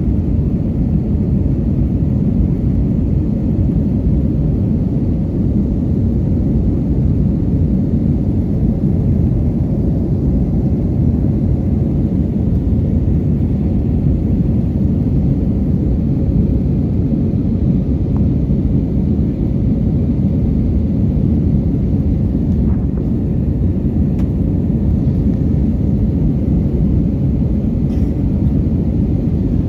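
Steady low rumble of an Airbus A321's engines and airflow heard inside the passenger cabin in flight.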